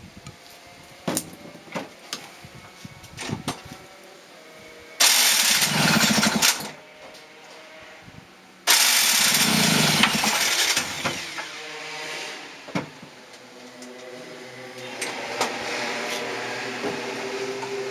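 Peugeot TKR scooter two-stroke single-cylinder engine, with a 70cc Top Performance cylinder kit, being started on its first start. A first attempt about five seconds in runs for about a second and a half and dies. A second attempt about nine seconds in catches, and the engine keeps running, settling to an uneven idle that picks up a little near the end.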